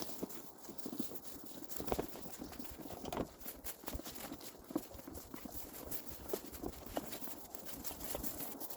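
Footsteps of a person walking over rough outdoor ground, uneven steps with some rustling.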